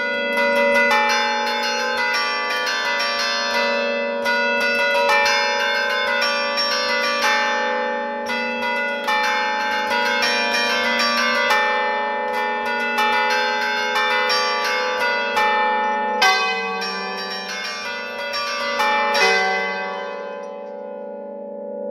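Church bells played as a tune from a hand-worked bell keyboard: a rapid, continuous run of struck notes on several bells, each ringing on under the next.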